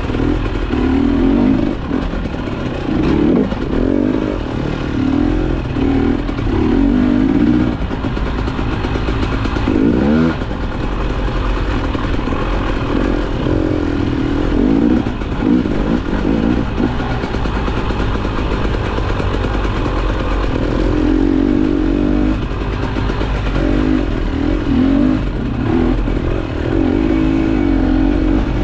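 KTM enduro motorcycle engine revving up and down over and over as it is ridden hard off-road, the pitch climbing and dropping every second or two, with clatter from the bike over rough ground.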